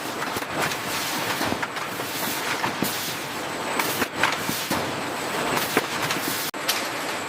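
Processing machinery running with a dense, noisy clatter and frequent irregular clicks and knocks; the sound changes abruptly about six and a half seconds in.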